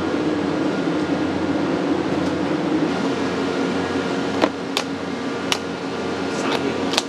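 Steady machine hum throughout. About halfway through come a few sharp clicks and knocks as live mud crabs are handled at a metal hanging scale pan.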